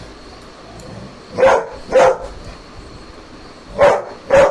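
A dog barking: four short, loud barks in two quick pairs, about half a second apart within each pair.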